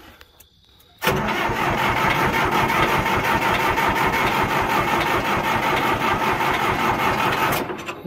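John Deere 450's diesel engine being cranked by the starter. It turns over steadily for about six and a half seconds from about a second in, without catching, then stops abruptly. It fails to start after a fuel-filter change, and the owner takes this to mean air in the fuel system that needs the injector lines cracked to bleed it.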